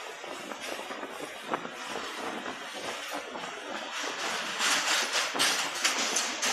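Ratnachal Express passenger train running fast over a steel truss rail bridge, heard from its open doorway: a steady rush of wheel, rail and wind noise that grows louder, with a rapid rattle, from about four and a half seconds in.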